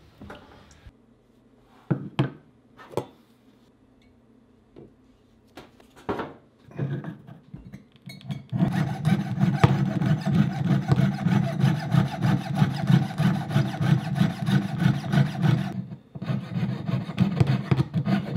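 A few scattered taps, then from about a third of the way in a steady run of quick rasping strokes: a hand tool filing or scraping a small gold casting held against a wooden bench pin.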